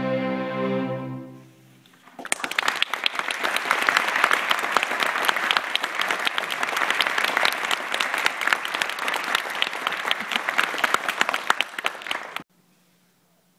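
A string orchestra holds its final chord, which dies away about a second in; after a short pause the audience applauds for about ten seconds, and the applause cuts off suddenly near the end.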